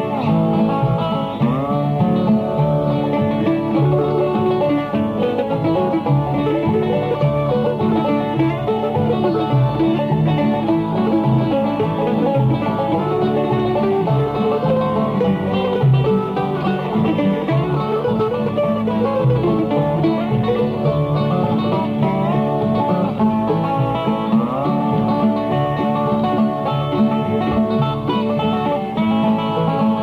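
Old-time Ozark string band playing a tune: banjo picking, with a dobro sliding into notes.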